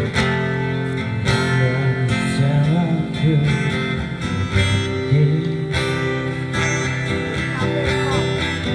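Instrumental music led by guitar, strummed and plucked, with steady low notes underneath.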